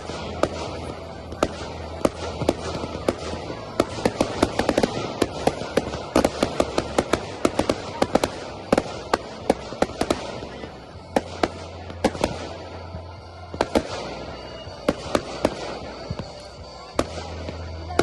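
Professional category F4 fireworks going off in rapid volleys of sharp bangs and crackling reports. The volleys are densest from about four to ten seconds in, then thin out to scattered single bangs.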